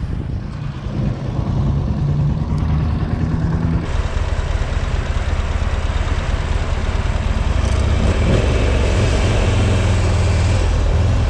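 Motorcycle engine running, heard from the rider's helmet camera. About four seconds in, a steady hiss of wind and road noise joins the engine note as the bike rides along.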